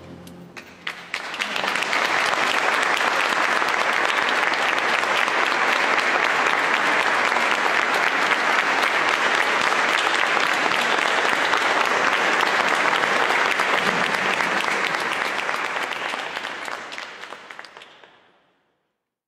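Audience applauding: a few scattered claps at first, building within about two seconds into full, steady applause that fades out near the end.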